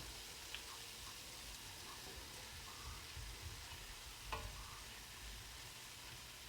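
Faint steady sizzle of food frying in a pot, with a couple of light clicks from a stirring spoon.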